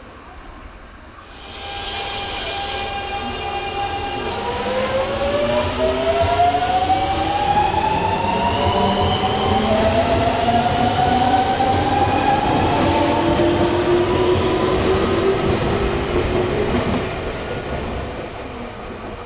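Nankai 1000 series electric train pulling away, its inverter motor whine rising in pitch as it picks up speed, in two climbing sweeps, then fading. A brief high-pitched tone sounds about a second and a half in.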